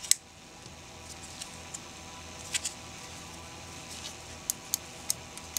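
Handling noise from a small circuit board and its black plastic case being pressed together and turned in the hands: a few short, light clicks and taps, the sharpest right at the start, over a faint steady hum.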